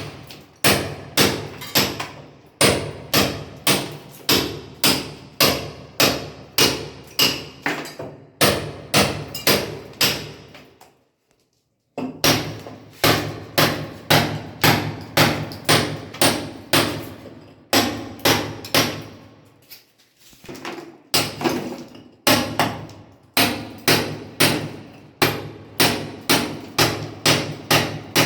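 A mason's hammer striking repeatedly, in quick runs of about three blows a second, with two short breaks.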